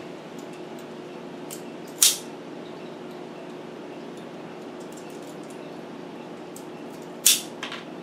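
Two sharp snips of a hand wire tool cutting and stripping wiring-harness wire, one about two seconds in and one near the end, followed closely by a lighter click. A steady low hum runs underneath.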